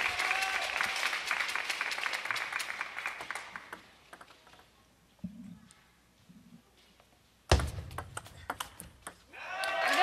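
Applause and clapping in a table tennis arena, fading away over the first four seconds into near quiet before the serve. About seven and a half seconds in, applause and clapping break out suddenly as the match point is won.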